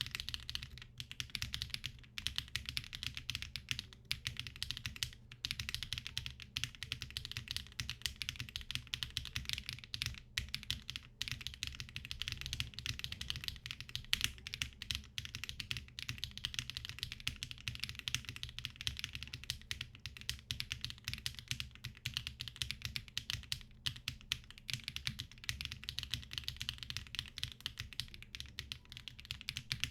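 Typing on a Cycle7 mechanical keyboard with HMX Hyacinth v2u linear switches in an aluminum case with no foam inside: keystrokes clicking in quick succession without pause.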